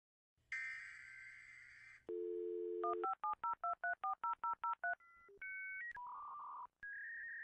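A short buzzy electronic tone, then a telephone dial tone for about a second, then about a dozen touch-tone (DTMF) digits dialed in quick succession. A few held electronic beeps at different pitches follow near the end.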